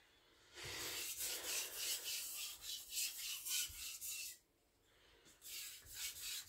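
Victorinox Chinese cleaver's steel blade drawn in light, rhythmic strokes across a fine sharpening stone, a scraping hiss at about two strokes a second, with a short pause about four and a half seconds in before a few more strokes. This is deburring: alternating sides with very light pressure to weaken and remove the burr.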